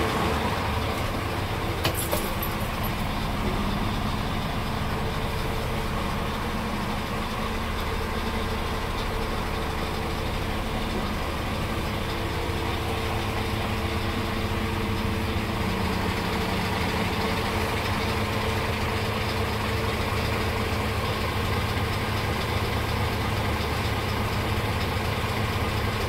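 Scania P410 truck's diesel engine idling steadily, heard from inside the cab, with a brief click about two seconds in.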